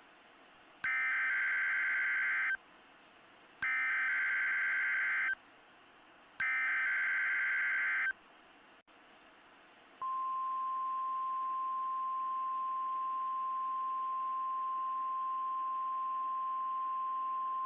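Emergency Alert System SAME header: three bursts of warbling digital data tones, each under two seconds with about a second between. About ten seconds in, the steady 1050 Hz NOAA Weather Radio warning alarm tone starts and holds, over a faint radio hiss.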